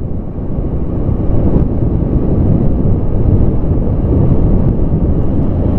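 Wind buffeting the microphone of a camera on a moving motorcycle: a steady loud rumble, with the bike's engine and road noise mixed in underneath.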